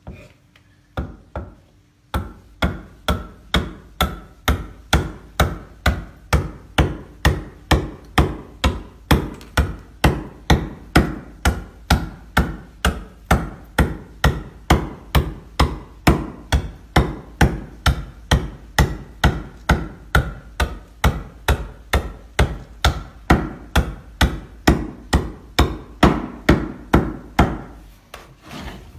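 Homemade toki kaupukapu, a traditional Māori hand adze, chopping into a wooden block in a steady rhythm of about two strokes a second. The strokes begin about two seconds in and stop just before the end.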